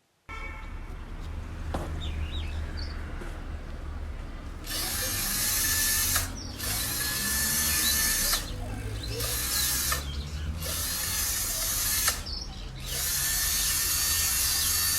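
A low steady hum, then from about five seconds in a power drill running in bursts of one to three seconds with short pauses between, its motor giving a steady whine.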